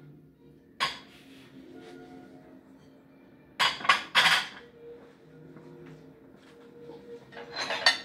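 Ceramic dishes clinking and clattering against each other as they are stacked away in a cupboard: one sharp clink about a second in, a louder clatter of three knocks around the middle, and another clatter near the end.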